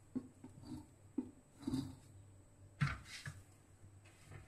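Faint handling sounds of colocasia leaves coated in wet gram-flour batter being rolled by hand on a steel plate: soft wet rustling with a few light knocks, the loudest about three seconds in.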